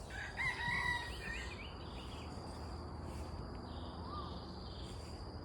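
Birds calling with short warbling whistled phrases in the first two seconds and one rising-and-falling note about four seconds in, over a steady high-pitched insect trill and a low steady background noise.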